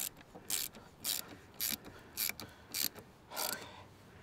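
Hand ratchet wrench being worked in short back-and-forth strokes, each a brief rasping click, about two a second.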